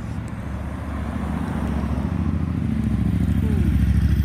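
Road traffic passing close: car engines with a motorcycle among them, a low engine hum that grows louder toward the end as the vehicles near.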